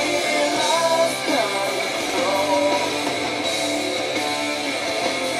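Background music with guitar and a melodic line.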